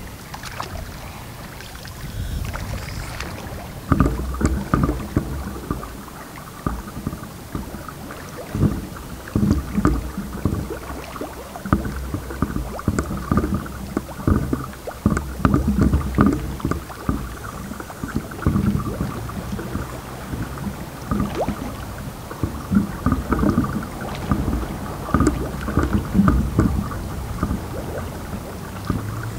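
Scuba divers breathing through regulators, heard underwater: from about four seconds in, exhaled bubbles rumble in irregular bursts every second or two, with a hiss at times.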